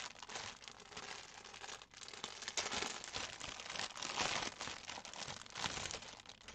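Clear plastic bag crinkling and rustling as hands handle a packet of embroidery floss, an irregular crackle that gets louder in the middle.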